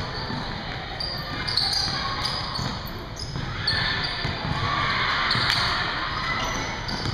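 Basketball game on a hardwood court: the ball is dribbled and bounces on the floor while sneakers squeak as players run.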